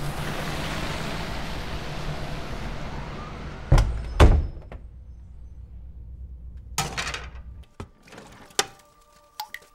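A steady hiss of outdoor background noise, then a door shutting with two heavy thuds about four seconds in. A softer knock follows, and near the end a few light clinks of plates being handled at a sink.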